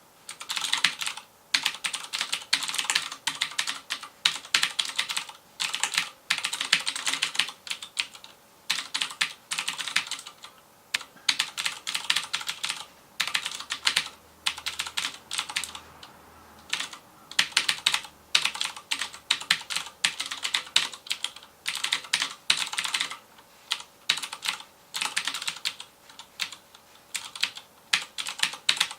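Fast typing on a FILCO Majestouch Convertible 2 mechanical keyboard with Cherry MX Blue switches: sharp clicking keystrokes in quick runs of a second or two, broken by short pauses.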